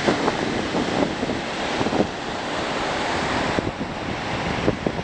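Sea surf washing, with wind buffeting the microphone in irregular gusts. The hiss eases a little past halfway through.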